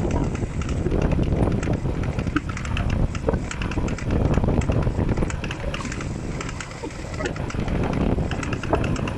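Yamaha XMAX 125 scooter rolling, with a steady rush of noise and irregular clicking from the rear wheel and transmission. It is the noise the owner hears only when coasting and decelerating, which the dealer calls normal.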